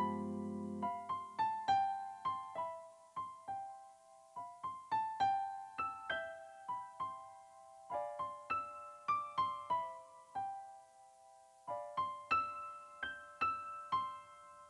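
Background piano music: a low chord for about the first second, then a slow, sparse melody of single struck notes that ring and fade, with brief pauses between phrases.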